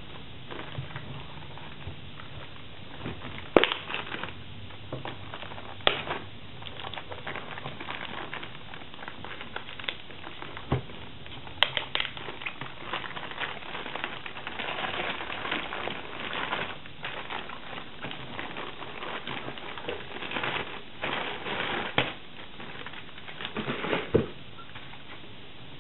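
Clear plastic bag crinkling and rustling as it is handled and pulled off a small NAS enclosure, with a few sharper, louder crackles every few seconds.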